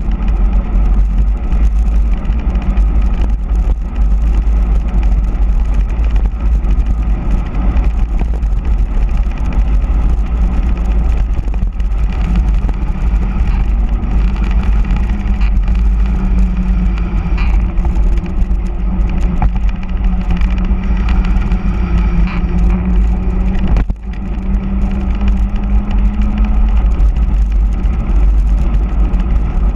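Wind rushing and buffeting over the microphone of a handlebar-mounted camera on a fast bicycle descent, over the hum of all-terrain tyres on asphalt, a steady tone that wavers a little with speed. The noise drops for a moment about three quarters of the way through.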